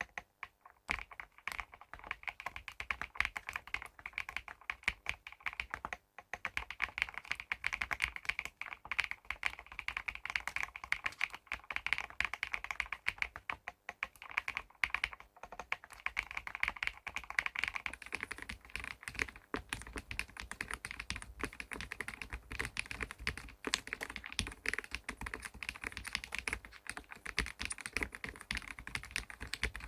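Fast, continuous typing on a custom mechanical keyboard fitted with Keyreative keycaps: a dense run of keystroke clacks, with brief pauses about six and fourteen seconds in.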